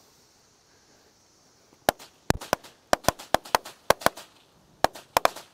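A batch of firecrackers going off: about two seconds in, a rapid, uneven string of about twenty sharp bangs, some in quick clusters and some with short gaps.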